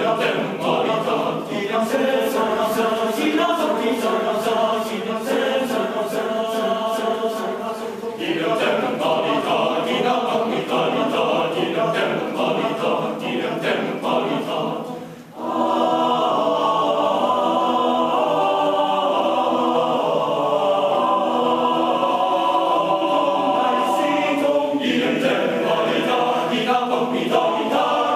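Male choir singing a cappella, with short sharp strokes keeping time through the first half. About halfway the sound drops away for a moment, then the choir comes back on long held chords.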